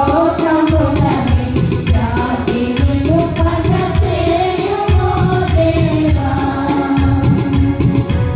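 Music: voices singing a melody over a steady drum beat.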